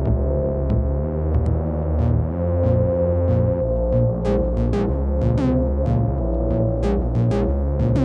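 Electronic music from Moog Subharmonicon and Mother-32 analog synthesizers: a sequenced low bass pattern stepping between notes under a held mid-pitched tone. About halfway through, a drum machine brings in a run of sharp hi-hat-like ticks.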